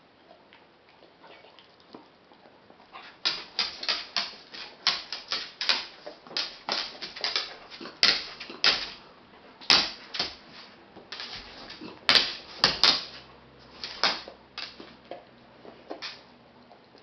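Bearded Collie chewing noodles: an irregular run of sharp clicks, several a second, starting about three seconds in and thinning out near the end.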